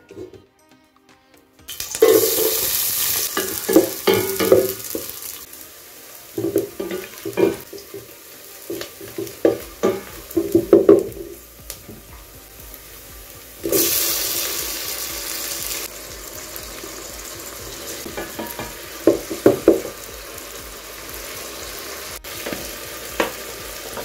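Chopped red onions sizzling in hot oil in a metal pot, stirred with a wooden spoon that knocks and scrapes against the pot. A second, louder sizzle starts about halfway through as more food, tomatoes, goes into the pot.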